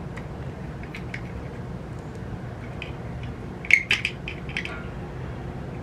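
Small metallic clicks and taps of a small screwdriver and camera parts as the rangefinder mounting screws are driven into a metal camera body, with a short cluster of louder clicks about four seconds in. A steady low hum runs underneath.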